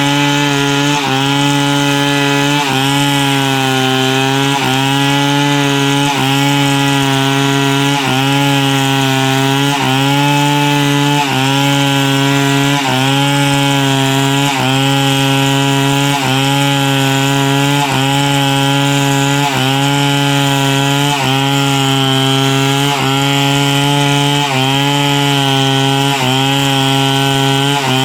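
Chainsaw engine running under load, cutting wood lengthwise into boards. Its pitch dips briefly and recovers in a steady rhythm, about every second and a half to two seconds.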